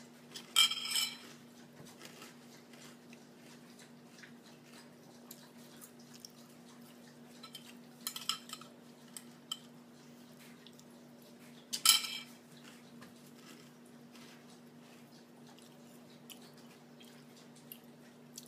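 Metal spoon clinking and scraping in a cereal bowl while eating, with small clicks throughout and three louder clinks: about half a second in, around eight seconds and near twelve seconds. A low steady hum runs underneath.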